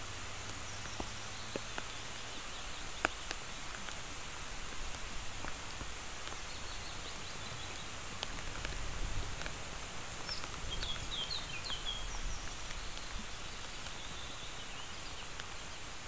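Steady rain hissing through the pine forest, with scattered sharp drips ticking near the camera. A small bird chirps a quick run of high notes about ten to twelve seconds in.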